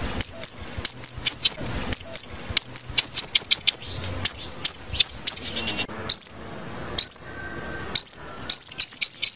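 Sunbird calling: series of short, high, thin chirps, each note a quick curving sweep. There is a pause of about two seconds past the middle, then a fast, evenly spaced run of notes near the end.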